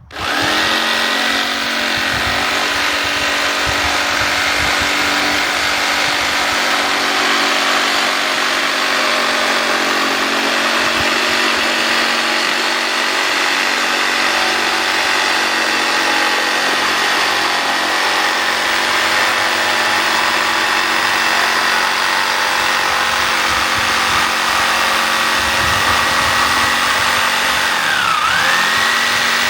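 Corded power tool's electric motor running at steady speed while trimming a sliver off a wooden bed slat. Its pitch dips briefly near the end, then it stops.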